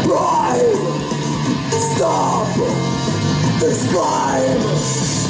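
Live band music: a man shouting sung lines into a microphone over an electric bass, the vocal phrases coming about every two seconds.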